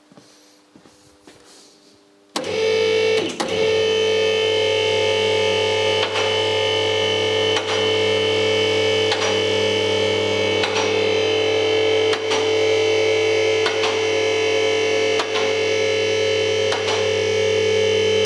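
Electric hydraulic power unit of a 4-ton two-column car lift switching on about two seconds in and running steadily with a hum, raising a load of nearly 2,000 kg. A click about every second and a half, from the safety locks riding over the lock ladder in the columns as the carriages climb.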